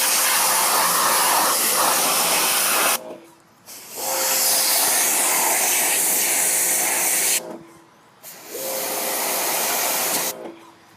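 Electric pressure washer spraying water onto a dirt bike in three long bursts, the spray's hiss stopping briefly twice as the trigger is let go; a steady hum from the washer's pump runs under each burst.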